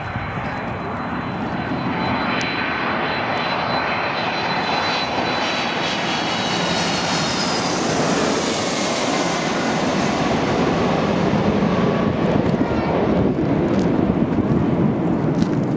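Jet airliner on final approach passing low overhead to land: a high engine whine early on, the noise peaking about halfway as it passes over, then a deeper engine roar as it moves away toward the runway.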